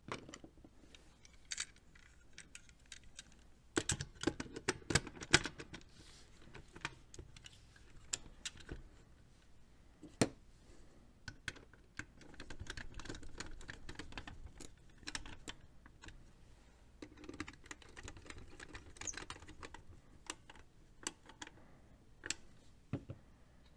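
Plastic and metal parts of a Square D size 00 motor starter clicking and knocking together as it is put back together by hand, with a screwdriver scraping as it turns the screws. The clicks come in scattered clusters, the loudest run about four to six seconds in.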